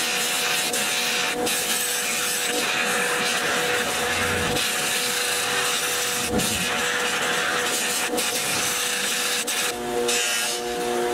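Electric bench buffer running with a steady motor hum while a small pressed-metal toy part is held against its spinning cloth buffing wheel, giving a continuous rubbing hiss. The hiss dips briefly near the end as the part is shifted on the wheel.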